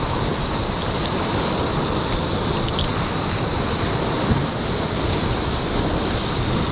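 Rough sea surging and breaking through a narrow rocky gully: a steady wash of surf, with wind buffeting the microphone.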